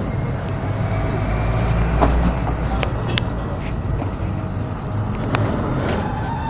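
Volksbus/MAN 17-230 OD city bus running on the road, heard from on board: a steady low engine drone with sharp clicks and rattles from the body, the loudest about two-thirds of the way through.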